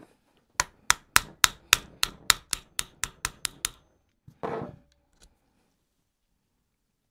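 Small hammer tapping the longer trigger-unit retaining pin into an HW30s air rifle's action: about a dozen quick, sharp strikes, about four a second. A short scrape follows.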